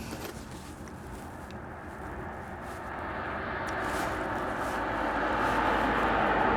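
Noise of a passing vehicle growing steadily louder from about two seconds in, with a few faint clicks.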